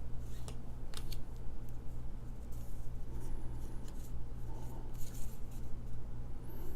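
Baseball cards being slid and flipped through by hand: a few short papery swishes and snaps, over a steady low hum.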